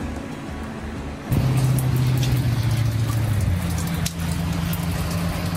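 Faint background music, then a sudden change about a second in to rain falling, with scattered sharp drop taps over a steady low hum.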